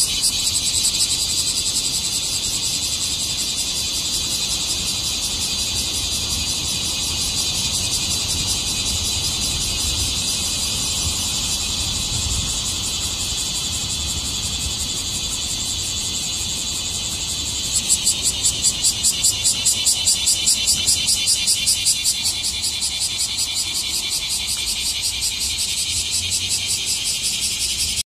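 Cicadas singing very loudly: a dense, high-pitched buzz that holds steady, then about eighteen seconds in turns into an even pulsing of about three beats a second.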